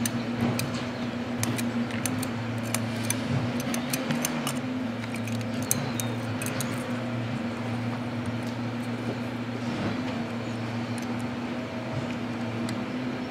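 Light plastic clicks and rattles from a First Gear toy front-loader garbage truck's Curotto Can arm and small toy trash bin being worked by hand, mostly in the first half, over a steady low hum.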